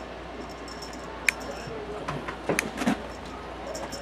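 Kitten at play with a feather wand toy on a carpeted cat tree: a sharp click about a second in, then a quick run of clicks and soft thumps near the end.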